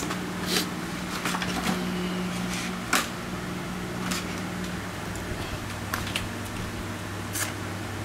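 Tools and a box being handled on a table: about five short, sharp clicks and knocks spaced a second or two apart, over a steady low hum.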